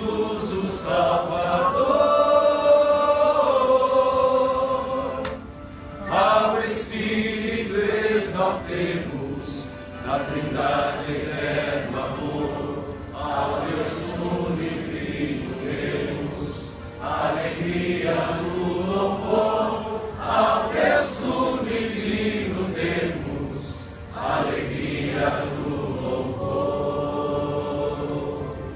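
Devotional hymn sung as a chant by several voices together, in long held phrases with short breaks between them.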